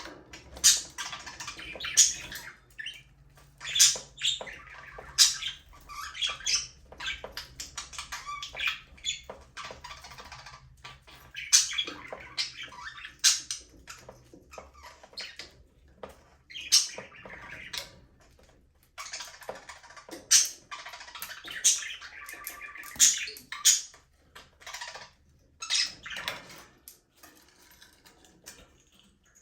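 A flock of budgerigars chirping and squawking: many short, sharp, high calls overlapping in a steady chatter. The chatter thins out and goes quiet over the last few seconds.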